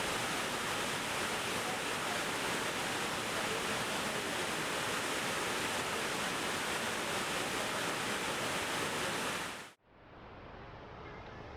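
Steady rush of a waterfall's falling water. It cuts off abruptly near the end and gives way to a quieter, duller rush of water.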